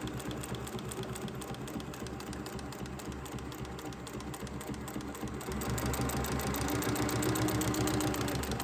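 SEWPRO 8360B 360 post bed sewing machine stitching leather, a fast, even rhythm of needle strokes that gets louder about two-thirds of the way through.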